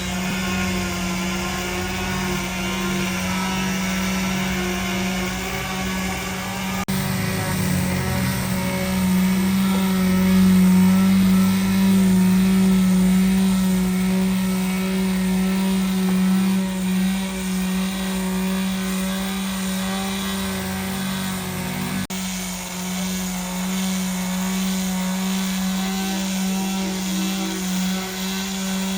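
Heavy motor-driven machinery running with a steady hum. It grows louder for a few seconds from about seven seconds in, and breaks off abruptly for an instant twice.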